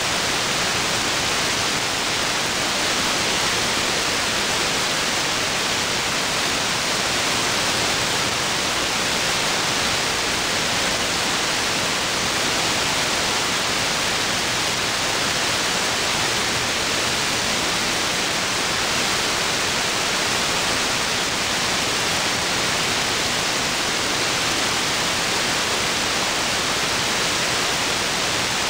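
Steady static hiss from an SDRplay RSP1 software-defined radio receiving AM on the 125.575 MHz aircraft-band channel while nothing is being transmitted: the dead air between air traffic control transmissions.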